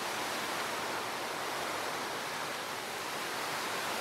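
Rain falling on a black plastic tarp roof, a steady even hiss.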